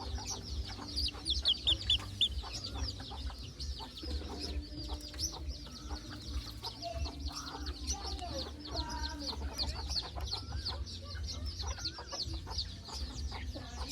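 White decoy junglefowl rooster clucking, in short bending calls clustered in the middle, over a dense, fast high-pitched chirping that goes on throughout.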